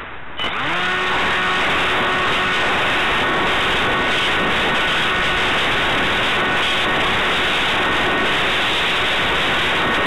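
Steady loud rush of air over the onboard camera microphone of a radio-controlled Maxi Swift model in flight in high wind. Under it a faint whine of several pitches rises briefly about half a second in, then holds steady.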